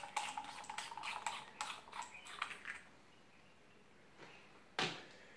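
Small telescope adapter parts and eyepieces clicking and tapping as they are handled and set down: a quick, irregular run of light clicks for about the first three seconds, then a single click near the end.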